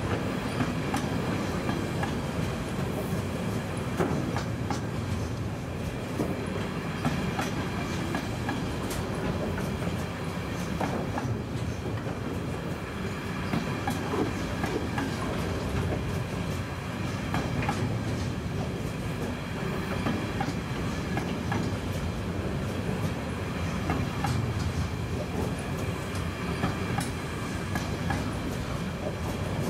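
Intermodal freight train of pocket wagons loaded with semi-trailers rolling steadily past, its wheels clattering on the rails with scattered clicks over a continuous rumble.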